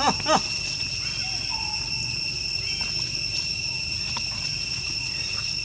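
Insects chirring steadily in a high, unbroken drone, with two quick sharp sounds right at the start.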